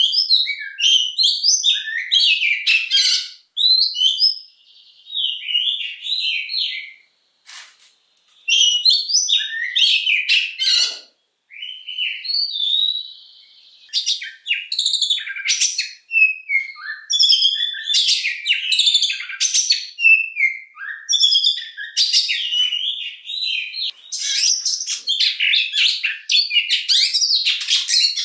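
Oriental magpie-robin singing a long, varied song of rapid chirps and whistles, with a few steady held notes and brief pauses.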